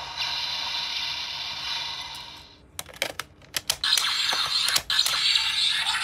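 Bandai DX Onjuken Suzune toy sword in gun mode playing an electronic finishing-move sound effect through its small speaker, which fades out about two and a half seconds in. A quick run of sharp plastic clicks from working the toy follows, and about four seconds in the next sound effect starts.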